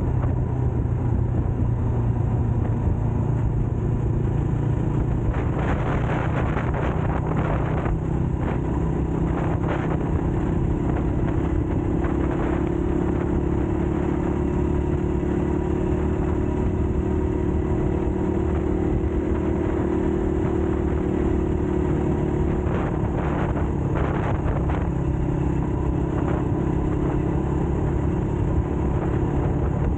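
Rusi KRY 200cc dirt bike's engine running steadily while the bike rides along at a cruising pace, its note holding an even pitch through the middle stretch.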